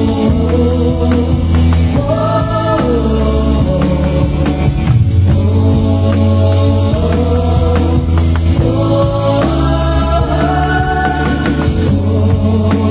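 Live Christian worship music: voices singing a gospel song over a band, with a steady bass line that changes note every couple of seconds and drum hits from an electronic drum kit.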